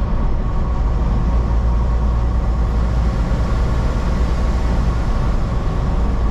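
Steady cab noise of a semi-truck driving on the highway: the diesel engine's low drone with tyre and road noise over it, unchanging throughout.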